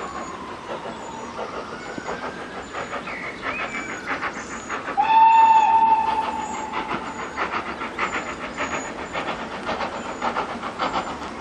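Steam tank locomotive working a train, its exhaust chuffing in a regular beat, with one steam whistle blast about five seconds in, the loudest sound, lasting about a second. Faint birdsong.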